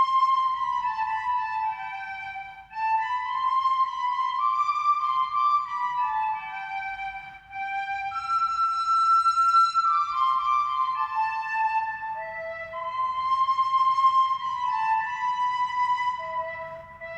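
Music: a single high melody line of held notes, played in phrases with short breaks between them.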